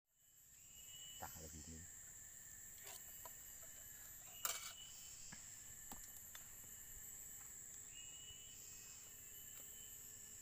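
Faint forest ambience: a steady high-pitched insect drone, with short repeated calls from other insects or birds about every couple of seconds and a sharp click about four and a half seconds in.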